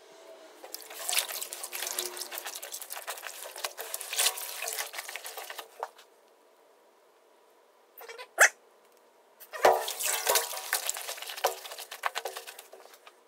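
Wet crackling and squelching from a water-soaked polymer flood bag (sandless sandbag) being handled and pressed in a wheelbarrow of water, in two stretches with a single sharp click between them.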